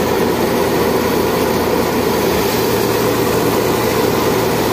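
Mahindra 575 DI XP Plus tractor's 47 hp diesel engine running steadily while driving a wheat thresher, with the thresher's drum whirring along with it in one unbroken machine din.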